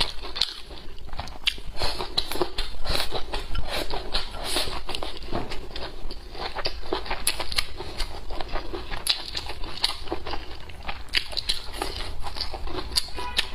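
Close-miked chewing and wet mouth sounds of someone eating twice-cooked pork stir-fried with chili peppers, together with rice: an irregular stream of small smacks and clicks.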